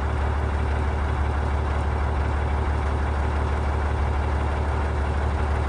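Diesel semi-truck engine idling steadily with a low, even rumble.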